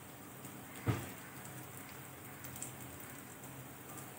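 Semolina-coated corn cutlets sizzling gently as they shallow-fry in oil in a nonstick pan, a steady fine crackle, with one dull knock about a second in.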